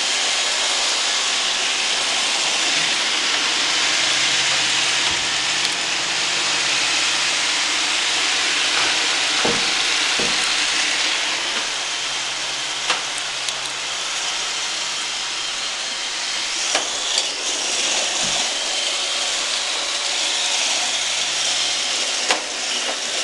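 Roomba robot vacuum cleaners running with a steady hiss of motor and brushes, with a few short knocks and clicks scattered through.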